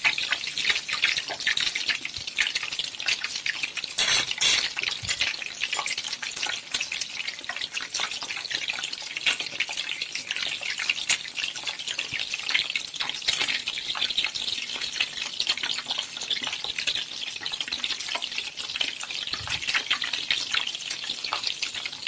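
Egg-and-milk-soaked bread slices frying in a pan of hot oil, the oil sizzling and crackling steadily, with a couple of brief knocks about four seconds in and near the end.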